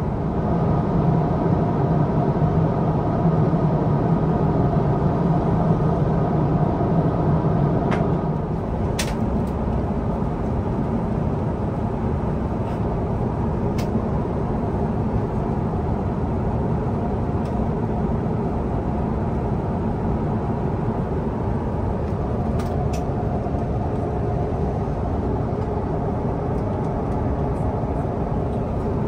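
Steady cabin noise of an Airbus A350-900 in flight, a constant rush with a low hum. The lower hum drops a little about eight seconds in, and a few small clicks sound during it.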